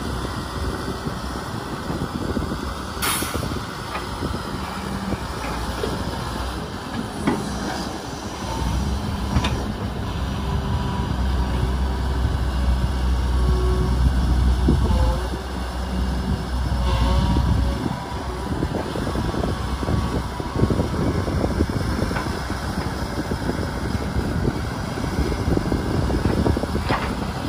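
Kobelco SK250 hydraulic excavator's diesel engine running steadily, working harder and louder for a stretch in the middle as the bucket digs into the soil pit. A few sharp knocks ring out, about three seconds in and again near the end, as the bucket unloads soil over the dump truck.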